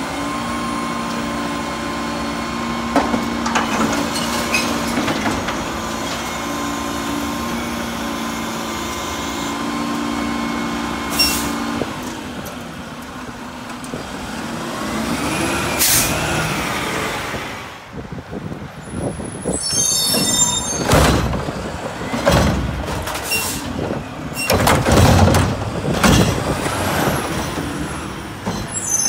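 Mack LR garbage truck with a Curotto-Can arm working its hydraulics: the engine runs at a steady raised speed while the can is dumped over the cab, then swells and falls away. After that come a run of clanks and knocks and air-brake hisses as the arm comes down and the truck moves off.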